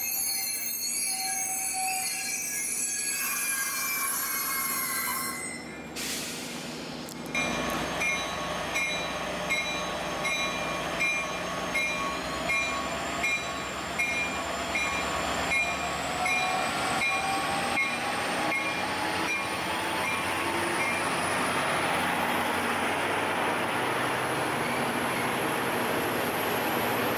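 Caltrain diesel passenger train with wheels squealing in high-pitched tones, then a bell ringing about one and a half times a second for several seconds, then a whine rising steadily in pitch as the train picks up speed.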